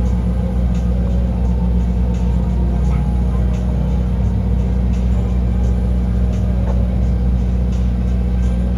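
A steady low engine hum and rumble, unchanging throughout.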